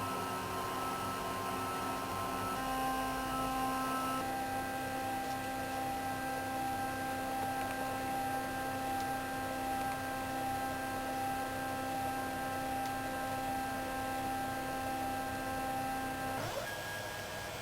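Stepper motors of a CNC foam cutter running, a steady whine of several tones that jumps to new pitches a few times as the axes change speed, with a quick pitch sweep near the end.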